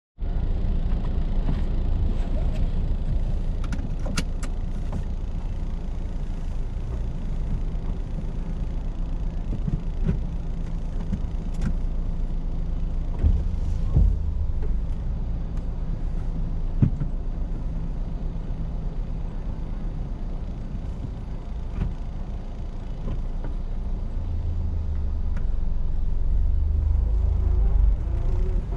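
Car driving on an expressway: a steady low rumble of road and engine noise, with a few short sharp clicks or knocks and a swell in the low rumble near the end.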